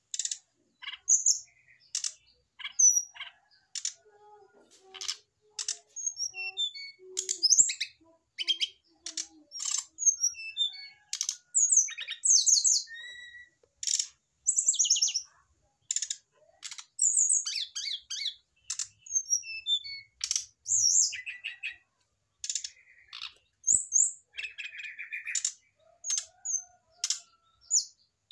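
Male brown-chested jungle flycatcher singing a lively, varied song of quick high chirps, short trills and clicking notes in rapid phrases with brief pauses, its reaction to a female placed beside its cage.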